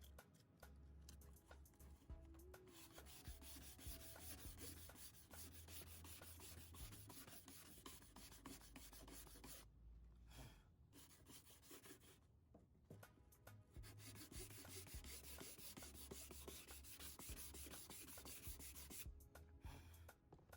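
Sanding with 80-grit sandpaper on the fender's rusted metal, a faint scratchy rubbing that prepares the repair area for body filler. It stops briefly a couple of times about ten to thirteen seconds in.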